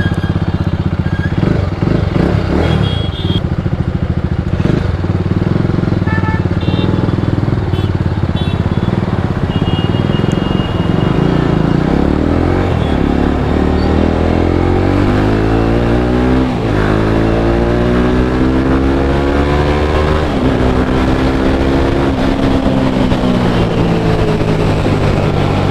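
Motorcycle engine running under way with wind noise, first at a steady speed, then accelerating about halfway through: the pitch climbs, drops sharply at a gear change, climbs again, and falls away near the end as the bike slows.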